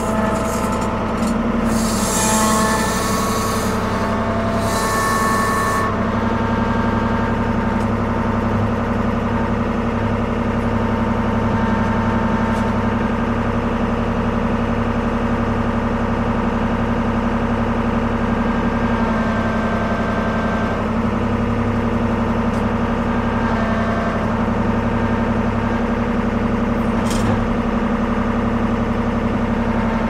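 Ford 550 backhoe's diesel engine running steadily at working speed as the machine operates. A few seconds in there are two short rushing, hissing noises over the engine.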